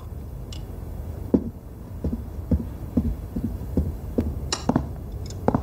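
A string of soft, low thumps, about two a second and uneven, over a steady low hum, with a couple of sharper knocks near the end.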